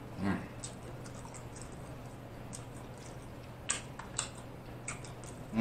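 Close-miked eating sounds: soft chewing with a few sharp wet clicks of lip smacks, a cluster of them about two thirds of the way through, over a steady low hum.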